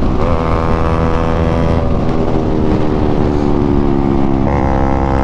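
Bajaj Pulsar NS200's single-cylinder engine pulling hard at speed, heard from the rider's own bike. There is a brief break in the engine note at the start, like a gear change. The pitch then falls slowly as the revs drop, and it steps up sharply again near the end.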